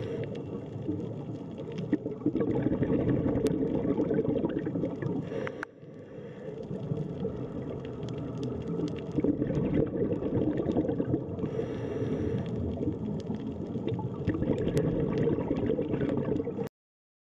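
Underwater ambience: a dense, muffled bubbling and gurgling of water with scattered sharp clicks. It dips briefly about six seconds in and cuts off suddenly shortly before the end.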